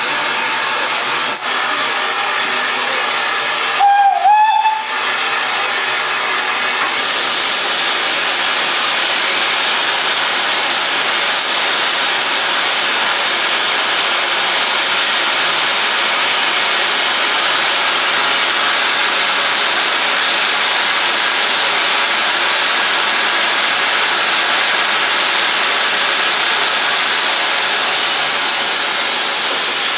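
A short steam locomotive whistle blast about four seconds in, one pitch with a slight dip. From about seven seconds, a loud, steady hiss of steam from a standing SECR O1 class steam locomotive.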